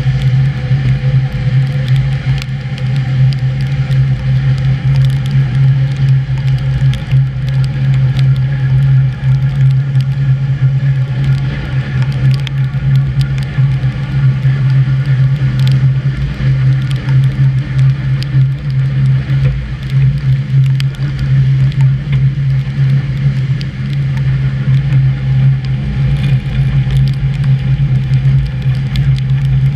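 Electric suburban train running along the track, heard from the front of the train: a steady low drone with scattered short clicks and knocks from the running gear and rails.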